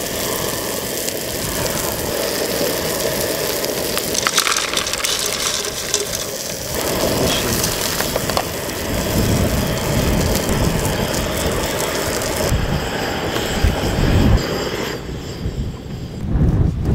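Fish fillets frying in oil in a pan on a gas camp stove: a steady sizzle and crackle over the burner's running hiss. The high sizzle dies away near the end, once the pan has been emptied.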